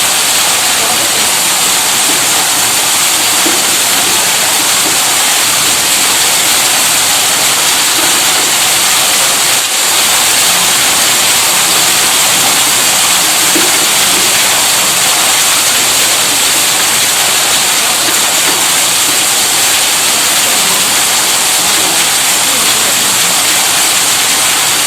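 Tube well electric pump running, its water gushing out in a steady, even rush with no distinct motor hum.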